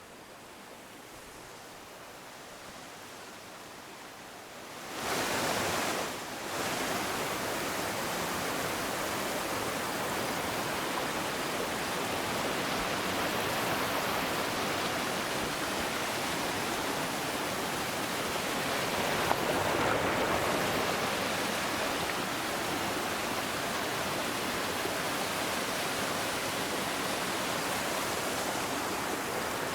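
River water rushing steadily, quieter for the first five seconds, then much louder from about five seconds in, with a brief dip just after.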